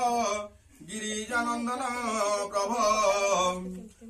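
A Hindu priest chanting puja mantras in a melodic, sing-song male voice, breaking off for a moment about half a second in and then chanting on.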